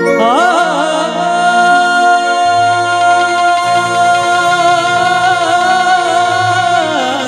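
Male singer through a stage microphone holding one long note of a Bhojpuri devotional song (bhajan) to the mother goddess. The note wavers in ornamented turns at the start and again near the end. Low instrumental accompaniment enters underneath about two and a half seconds in.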